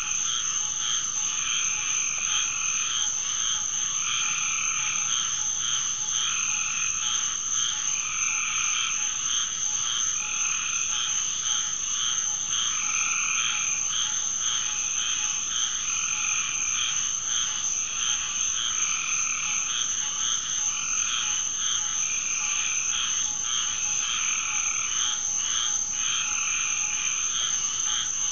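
Chorus of frogs calling after a heavy rain, their calls repeating about once a second, over a steady high trill of crickets.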